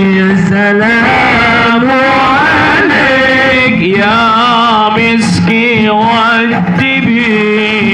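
A man singing sholawat, an Arabic devotional song in praise of the Prophet, into a microphone. He holds long ornamented notes that wind up and down in pitch.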